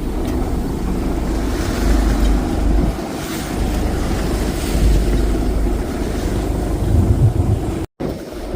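Wind buffeting the microphone over rushing water and a low, fluctuating rumble aboard a boat under way. The sound cuts out for a split second near the end.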